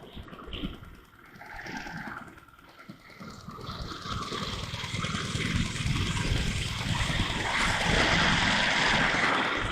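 Riding noise of a motorcycle, wind rush and engine, recorded through an action camera whose automatic noise reduction makes it unsteady, loud and soft by turns. It is low and patchy for the first few seconds, then swells to a loud rushing hiss that eases off just before the end.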